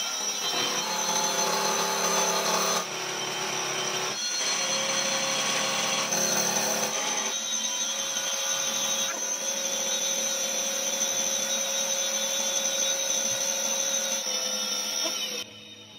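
Vertical milling machine cutting steel: the spindle runs with steady high tones over a grinding noise as the cutter machines the edge of a steel wrench jaw. The sound drops away sharply near the end.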